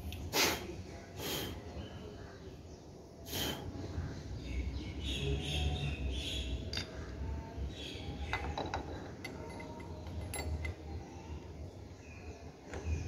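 Scattered metal knocks and clicks as a toothed gear and other motorcycle engine parts are handled and fitted by hand. The loudest knocks are three sharp ones in the first few seconds; lighter clicks follow later.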